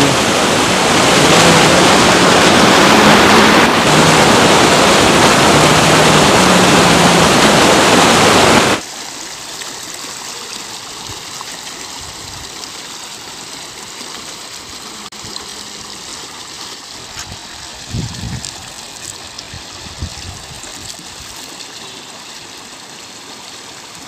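Rushing water of a small waterfall close by, loud and steady. About nine seconds in it cuts suddenly to the much quieter, even flow of a shallow river running over stones.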